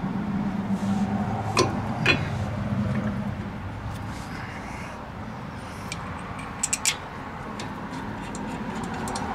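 Sharp metal clinks and taps of tools and brake parts being handled during a disc brake job: two about one and a half and two seconds in, then a quick run of three about two-thirds of the way through, over a low steady hum that fades after the first few seconds.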